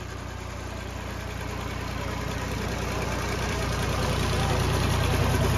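Diesel tractor engine running, growing steadily louder.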